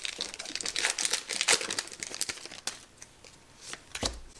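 Pokémon booster pack's foil wrapper being torn open and crinkled by hand: a dense run of sharp crackles that thins out after about three seconds.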